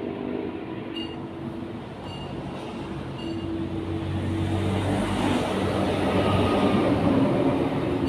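A passing vehicle's low, steady mechanical rumble that grows louder after about four seconds, with short high pips about once a second in the first half.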